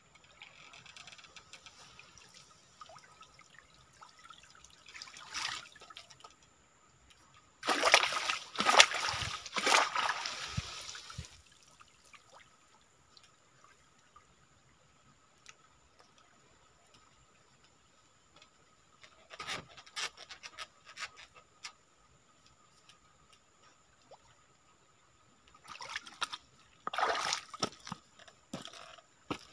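Water splashing and streaming off a bamboo-framed lift net as it is hauled up out of a stream, the loudest splashing coming in one burst of about three seconds; shorter splashes follow later as the net goes back into the water.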